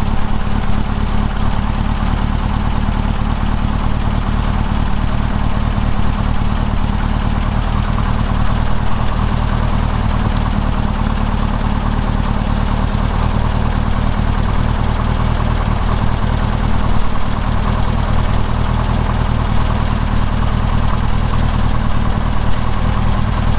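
Engine idling steadily and evenly; it doesn't run real great but runs good enough, with some blockage suspected in its carburetor's main and idle jets.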